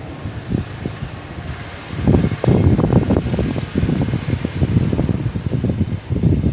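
Moving air buffeting the microphone: a low, uneven rumble of gusts that grows louder about two seconds in.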